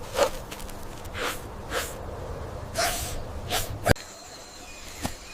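An animal's short breathy puffs, like sniffs or snorts, about five in the first four seconds, with a sharp click just before the fourth second.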